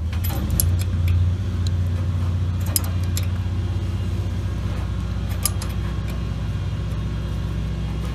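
Steady low engine drone, likely lawn mowing close by, with a few light metallic clicks from a wrench tightening a brass compression fitting on a copper oil pressure gauge line.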